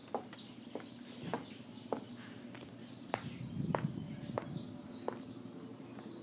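Footsteps in shoes on a wooden deck and then up wooden outdoor stairs, sharp knocks at a steady walking pace of about three steps every two seconds. Birds chirp throughout with short high calls.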